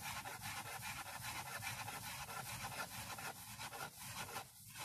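Kitchen knife slicing crab sticks into thin strips on a wooden cutting board: quick, even strokes of the blade, about four a second, with a brief pause near the end.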